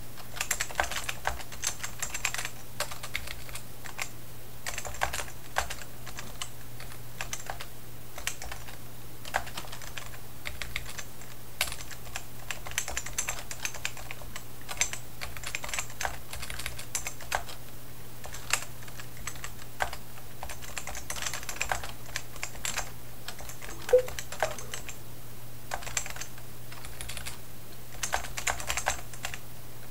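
Typing on a Key Tronic Ergoforce KT2001 rubber-dome keyboard: bursts of quick key presses with short pauses, over a steady low hum. One louder knock about three quarters of the way through.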